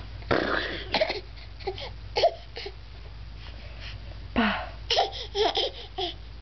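Baby's short, high vocal squeals in a string, one falling in pitch about four seconds in, then several quick ones close together.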